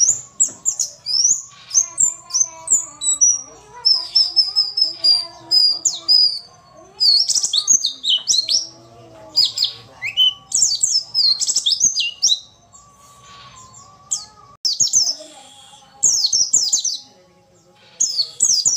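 White-eye (pleci) singing: rapid runs of high, thin chirps and twittering trills with short pauses. It is presented as a female pleci's call, used as a lure to get silent males singing.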